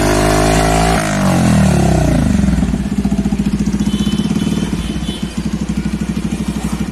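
Yamaha FZ-X's single-cylinder engine breathing through an Akrapovic slip-on silencer with the dB killer removed. It is held at a light rev, drops back about a second in, and settles to an evenly pulsing idle.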